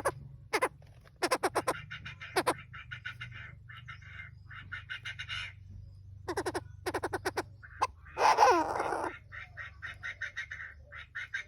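Chinese francolins, male and female, calling in runs of short, harsh, rapidly repeated notes, with one louder, longer grating call about eight seconds in. A faint steady low hum runs underneath.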